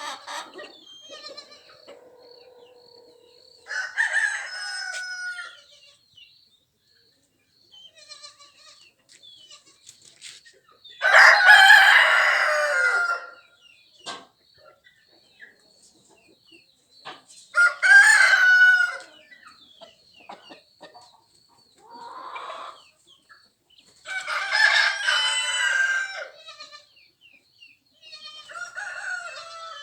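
Desi (indigenous) chickens: roosters crowing about six times, one crow after another with pauses between, the loudest about eleven seconds in, with hens clucking in the gaps. A faint, evenly pulsing high chirp runs underneath.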